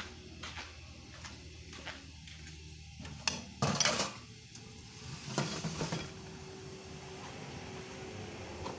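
Dishes and utensils clinking and clattering as food is handled, with two longer, louder clatters in the middle.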